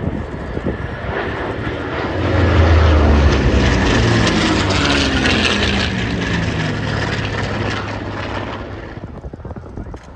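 Lockheed P-38 Lightning's twin Allison V12 piston engines in a flyby. The engine note builds to its loudest about two seconds in, falls in pitch as the aircraft passes, and fades away near the end.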